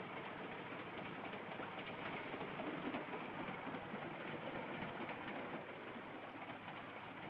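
Steady rumbling rattle of a moving passenger train, an even, continuous noise with no distinct beats.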